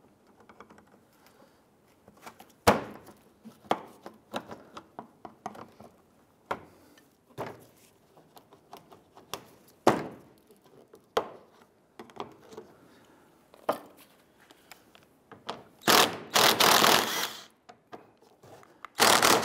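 Plastic pushpin clips and fasteners on the underside of a car bumper being worked with a metal trim tool: scattered sharp clicks and knocks, a second or more apart. Near the end comes a louder, rougher sound lasting about a second and a half.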